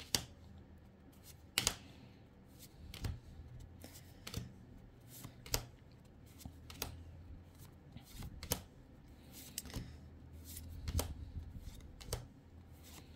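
Magic: The Gathering cards being flipped through by hand one at a time, each card slid off the deck or set down with a light snap or click, about one a second at an uneven pace.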